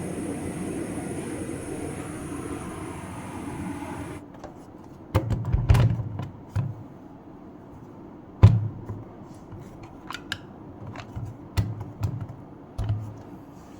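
Cooling fan of a Milwaukee M18 rapid battery charger hissing steadily, the normal sound of the fan cooling the charger during charging. It cuts off suddenly about four seconds in, followed by a string of sharp clicks and knocks.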